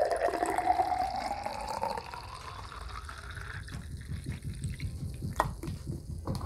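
Bottled tea poured from a plastic bottle into a glass, the pouring sound rising steadily in pitch as the glass fills, then stopping after about three and a half seconds. A sharp knock follows about five seconds in.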